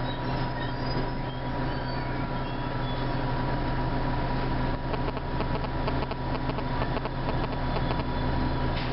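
Orion V transit bus's diesel engine idling while the bus stands at a traffic light, heard from inside the cabin at the front: a steady low drone with a constant whine above it. A light rapid ticking joins about halfway through, and a short hiss comes near the end.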